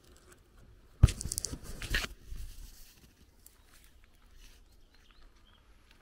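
Faint footsteps on a gravel lane, broken about a second in by a sudden loud knock and about a second of scraping rustle that ends in a second knock.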